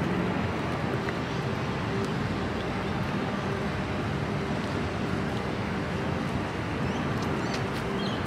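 Steady outdoor city noise: a constant low rumble of traffic with no distinct events.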